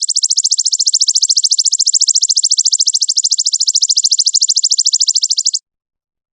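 High-pitched animal trill made of rapid, even pulses, about a dozen a second, held steady for about five and a half seconds before cutting off.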